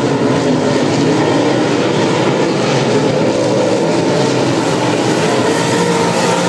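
A pack of dirt modified race cars' V8 engines racing around the oval together: a steady loud blend of engines whose pitches waver up and down as the cars go by.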